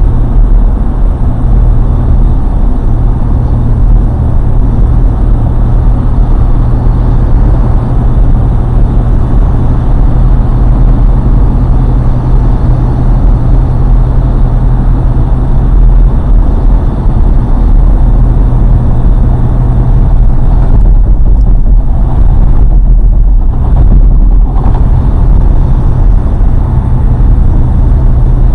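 A car driving at a steady speed, with a loud, constant low rumble of road and engine noise.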